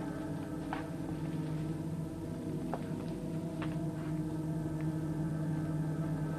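A science-fiction soundtrack drone of several steady held tones, with a few short high blips scattered through it.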